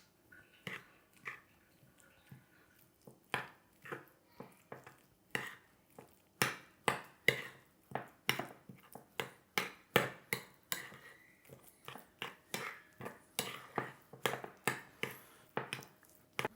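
A utensil clicking and scraping against a plate while folding chopped pickles and herbs into thick homemade mayonnaise, in irregular strokes about one or two a second.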